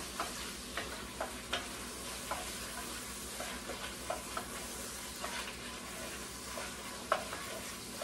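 Diced chicken frying with a steady sizzle in a Dutch oven, while a utensil stirring the pot makes scattered light clicks and scrapes.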